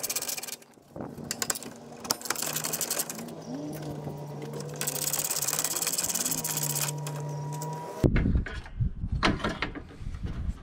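Hand socket ratchet clicking as bolts on the hood latch are turned out, with a low steady hum behind it. About eight seconds in the sound cuts to sharp knocks and clanks of metal parts being handled.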